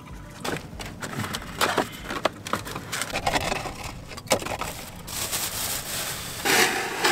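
Handling noises from an oil change: irregular knocks and clicks with some rustling and scraping, then a louder, steady rustle starting near the end.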